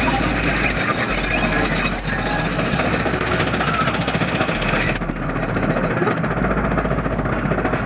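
Primeval Whirl, a steel spinning wild-mouse roller coaster, running with a steady loud mechanical rattle and clatter. The sound turns duller about five seconds in.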